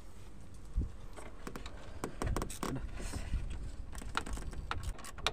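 Scattered metallic clicks and scrapes of a hand tool working the alternator's adjusting bolt as the engine's drive belt is tightened to cure its squeal.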